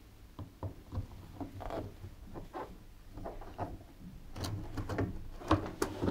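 Flat-head screwdriver prying the outer retaining band off a washing machine's rubber door seal: scattered light clicks and scrapes, busier and louder in the last two seconds.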